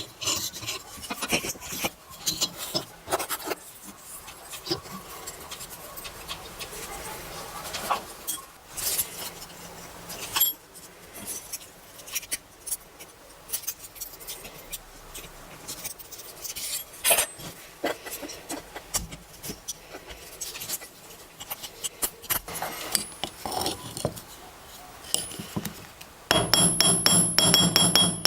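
Small metal parts and hand tools clicking, tapping and scraping in quick irregular strokes during hand work on a pocket knife. Near the end a much louder steady sound with a fast, even rhythm cuts in.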